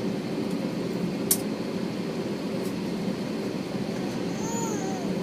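Steady drone inside the passenger cabin of an Airbus A321 taxiing onto the runway, engines at low power with the air-conditioning running. A sharp click comes about a second in, and a faint short rising-and-falling whine near the end.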